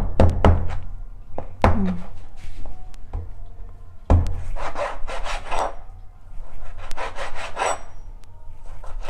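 Kitchen knife sawing through smoked pork on a wooden chopping board in drawn back-and-forth strokes, with a few sharp knocks of the blade on the board near the start.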